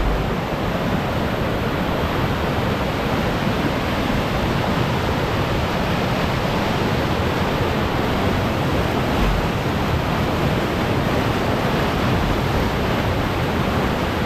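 Flooded waterfall: a steady, loud rush of high, fast creek water in flood, with two brief low bumps, one at the start and one about nine seconds in.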